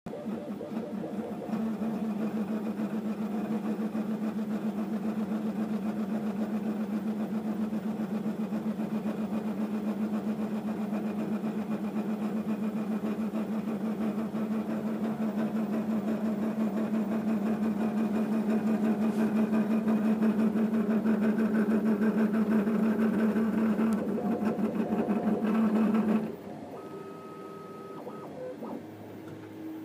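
Desktop 3D printer running mid-print: its stepper motors and fans make a steady buzzing hum with rapid flutter, which cuts off abruptly about 26 seconds in.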